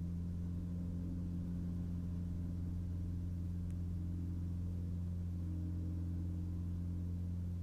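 Floatplane engine and propeller at takeoff power during the takeoff run on the water: a steady low drone with a few even overtones.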